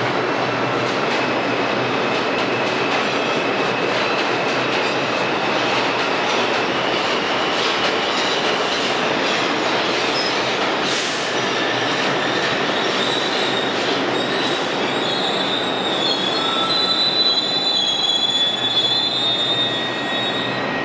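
R62 subway train pulling into the station: a steady rumble of wheels on rail, with high-pitched squealing that builds in the second half as it brakes to a stop and eases off near the end.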